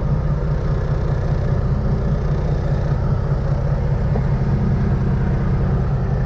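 Semi truck's diesel engine idling close by, a steady low rumble.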